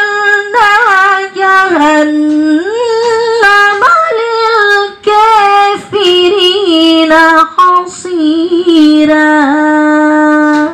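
A woman reciting the Quran in melodic murattal style, holding long notes with wavering ornaments across several phrases separated by short breaths, and stopping sharply at the end.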